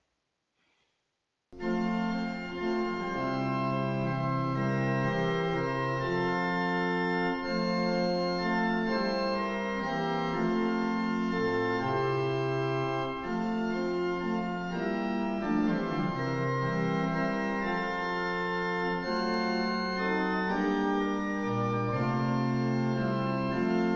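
Organ music: slow, sustained chords changing every second or two, starting about a second and a half in after a short silence.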